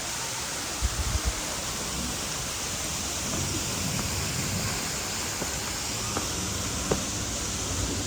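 Steady rushing of a waterfall, with a few brief low thumps about a second in.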